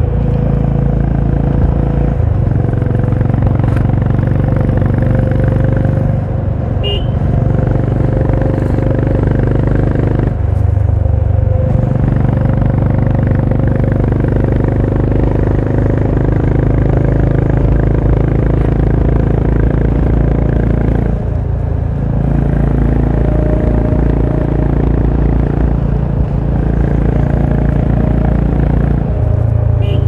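Honda H'ness CB350's single-cylinder engine and exhaust running under way, the engine note changing every few seconds as throttle and load change.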